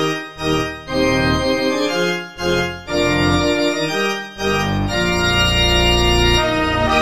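Organ playing a hymn tune in sustained, full chords with a deep bass, with short breaks between phrases.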